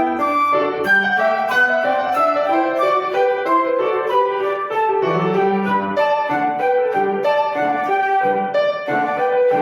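Flute and piano duet playing a lively dance piece, the piano in quick, evenly spaced notes under held melody tones.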